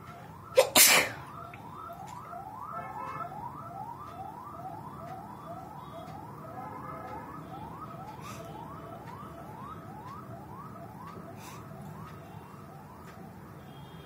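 A woman sneezes once, loud and sudden, about half a second in. Behind it a steady run of short rising tones repeats about three times a second.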